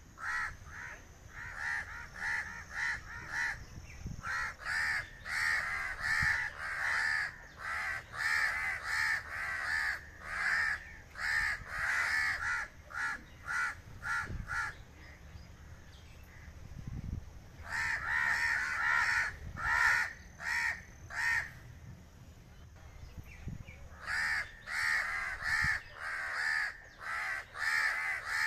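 A flock of crows cawing, many harsh caws in quick overlapping series, with a couple of short lulls.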